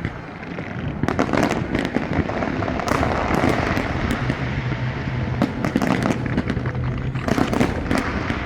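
Fireworks display: a dense run of bangs and crackling bursts, one after another with no let-up.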